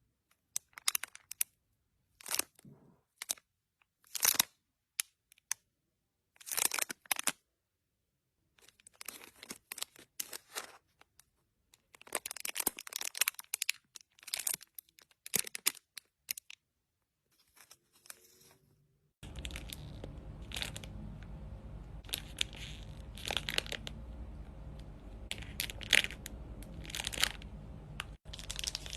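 Plastic packaging crinkling and rustling as foam squishy toys are handled and squeezed, in short separate bursts with gaps between. About two-thirds of the way through, a steady low hum comes in beneath the crinkling.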